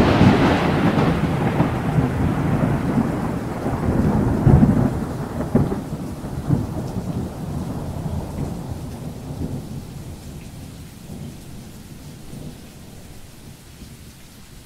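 Thunder: a loud clap at the start rolling on in a long rumble, with a few further swells of rumbling, fading away over about ten seconds into the hiss of rain.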